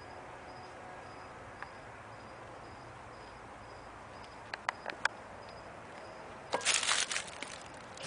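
A large dog's claws clattering on a hard floor as it runs, in a burst of about a second near the end, after a few sharp clicks a couple of seconds earlier.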